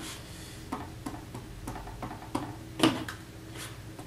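Keypad buttons of a SentrySafe quick-access biometric pistol safe being pressed in random wrong combinations: about half a dozen irregular clicks, the sharpest near three seconds in.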